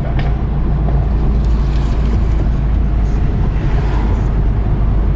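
Volkswagen Golf GTI MK7 cruising: a steady low drone of engine and road noise with no change in revs.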